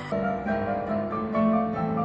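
Instrumental music led by a piano, playing a run of held notes that step from one to the next.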